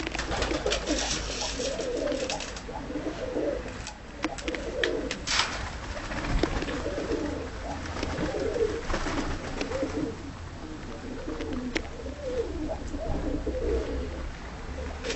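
Dönek pigeons cooing continuously in a coop, with scattered sharp clicks and a few brief rustling bursts.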